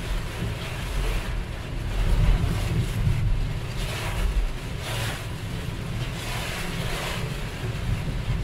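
Heavy cloudburst rain hitting a car's windshield and body at expressway speed, heard from inside the cabin over a steady low road and wind rumble, with the wipers sweeping the glass every second or two.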